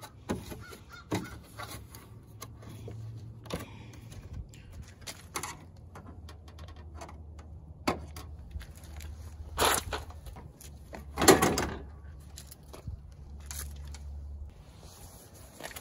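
Plastic clips popping and a Toyota Tundra's plastic chrome grille rattling and knocking as it is pulled up and off the front of the truck: a string of clicks and knocks, with two louder snaps a little past the middle, over a low steady rumble.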